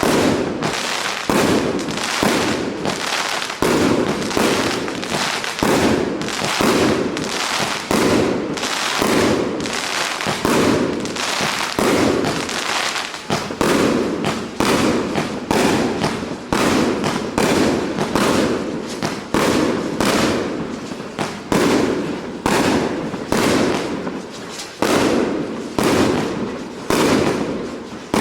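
Multi-shot fireworks cake firing a continuous run of shots, about one to two a second, each sharp report fading quickly before the next.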